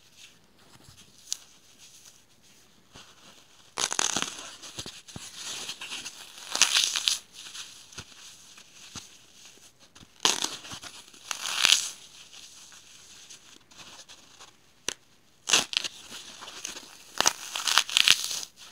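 Dry, unsoaked floral foam being crushed and broken by gloved fingers: spells of crisp crunching and crumbling a few seconds apart, with quieter scratching of foam crumbs between.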